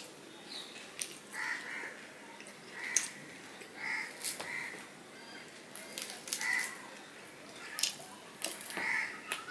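Close-miked eating by hand: wet chewing, lip smacks and sharp mouth clicks as rice and fried hilsa are eaten. A bird calls in short harsh notes many times in the background.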